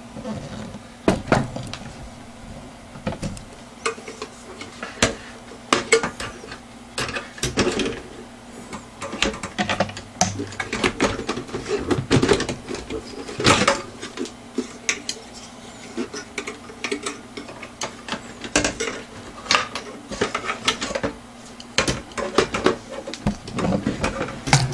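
Irregular clicks, taps and rattles of hard plastic and metal computer parts being handled during disassembly of a Dell Inspiron 3646 desktop, over a faint steady hum.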